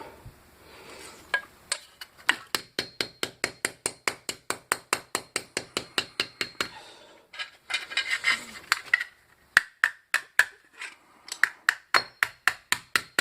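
Rapid light hammer taps, about four or five a second, on a hollow sterling silver handle held on edge, shattering the resin filling inside so it comes out. The tapping stops for a couple of seconds in the middle, then starts again.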